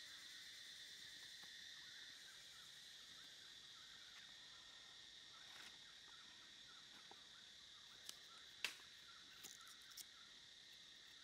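Faint steady insect drone at two high pitches, typical of crickets or cicadas in woodland. In the second half come a few sharp knife taps while leafy greens are cut on a wooden chopping block; the loudest comes a little past two-thirds of the way in.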